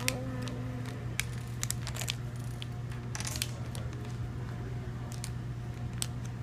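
Paper leaflet from a toy blind bag rustling as it is handled, with scattered light clicks of small plastic building pieces on a wooden table, over a steady low hum.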